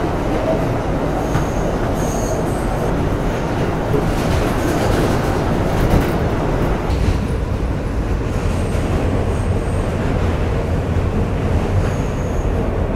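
New York City subway train running, heard from inside the car: a loud, steady rumble with a few brief high wheel squeals.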